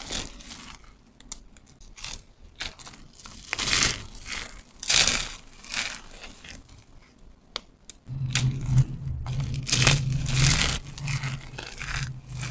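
Dry soap flakes and thin soap strips crumbled and crushed between the fingers, in repeated bursts of crisp crunching. A low steady hum comes in about eight seconds in.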